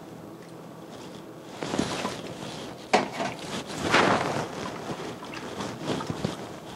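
Vinegar sloshing and splashing in a glass baking dish as gloved hands rub and turn a whole raw fish in it to wash it, with one sharp knock about three seconds in.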